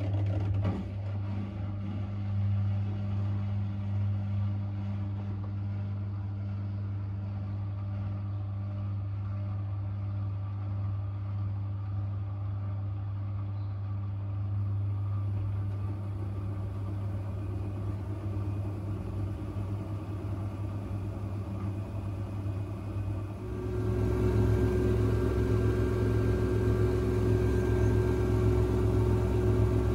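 Front-loading washing machine running with a steady motor hum and drum whir. About 23 seconds in it gets louder and a new, higher steady tone joins, as when the drum speeds up on spin.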